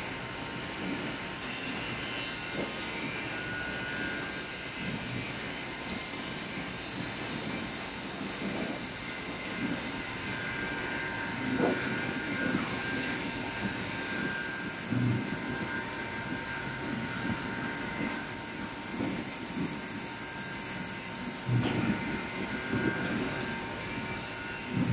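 Multi-blade circular rip saw machines running steadily as pine logs are fed through them, with a few louder knocks as logs are handled onto the chain feeders, around the middle and near the end.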